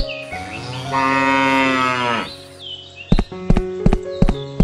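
A cow mooing once: one long moo of about two seconds that rises at the start and falls away at the end. Background music with a steady beat comes in about three seconds in.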